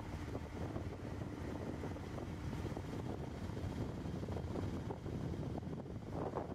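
Wind buffeting the microphone of a camera on a moving vehicle, over a steady rumble of engine and tyre noise on the road.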